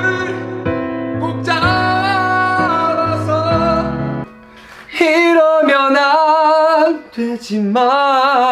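A man's song played back with pitch correction over an instrumental accompaniment with a steady bass. Just past halfway the backing stops and he sings unaccompanied, loud, with a wide wavering vibrato.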